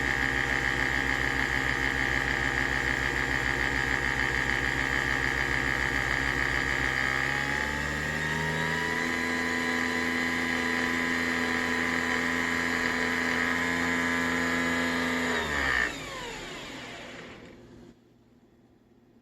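Nespresso Vertuo coffee machine brewing, its motor whirring as it spins the capsule. The pitch shifts up about seven seconds in, then winds down and stops near the end.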